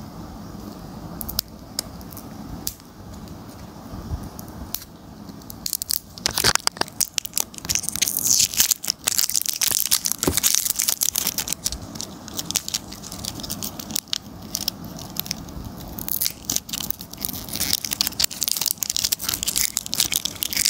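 Plastic wrapping crackling and tearing as it is peeled off a small round cosmetic jar. A few light clicks of handling come first, then from about six seconds in a dense, irregular run of crinkling and crackling.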